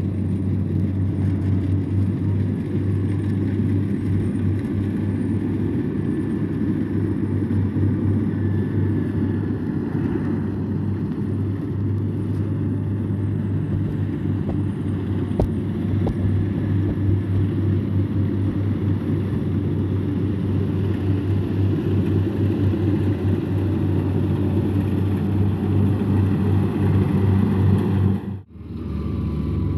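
Kubota DC-70 combine harvester's diesel engine running steadily with a deep drone while it cuts rice in a muddy field. The sound breaks off briefly near the end, then carries on.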